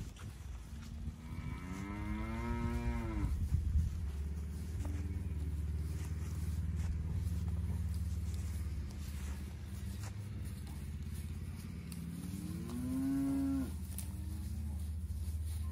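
Young black and black-baldy heifers mooing: one long moo about a second in and a shorter one near the end, over a steady low rumble.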